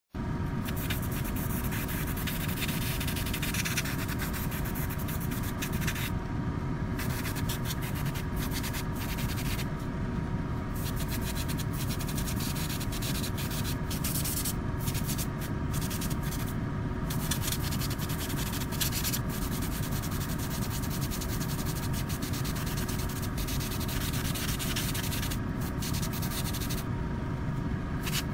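Airbrush hissing as it sprays paint onto a plastic scale model, cutting out briefly several times as the trigger is released, over a steady motor hum.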